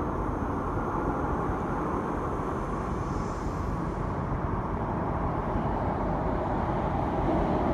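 Steady low rumble of an MTR K-Train electric multiple unit approaching through the tunnel into an underground station, mixed with the station's background hum, growing a little louder near the end as the train nears the platform.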